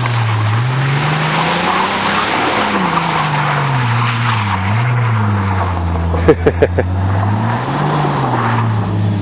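Car engine revving up and down several times as the car spins its wheels through mud, over a steady hiss of spinning tyres and flung mud. A quick run of sharp knocks comes about six seconds in.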